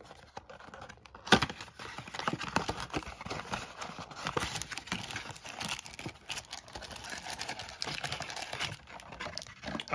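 Hands opening a cardboard trading-card box and handling the plastic-wrapped packs inside: a run of small taps, scrapes and crinkles, with one sharp snap about a second in.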